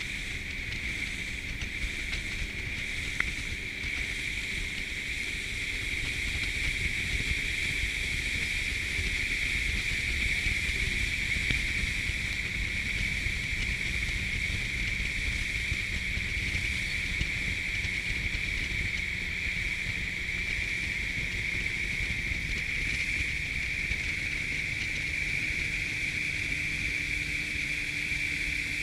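Motorboat running steadily under way, its engine drone mixed with wind and rushing water on the microphone.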